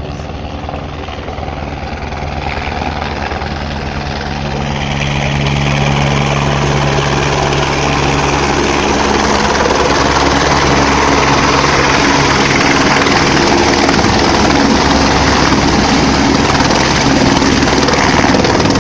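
Helicopter approaching and landing on a helipad. Its rotor and engine noise grows louder over the first six seconds or so, then stays loud and steady as it touches down.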